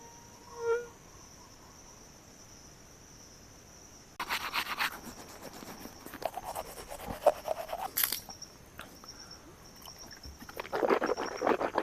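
Night insects keep up a steady high-pitched trill, which turns to quick chirps in the second half; a short animal call sounds near the start. From about four seconds in, irregular bursts of scraping and rustling of things being handled come and go, the loudest sounds.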